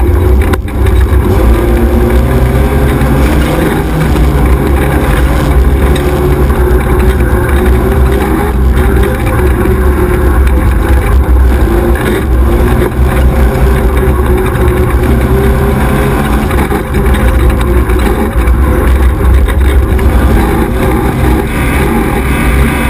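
XY 1100R 4x4 buggy's engine running hard under racing load, loud and deep, its pitch wavering up and down with the throttle.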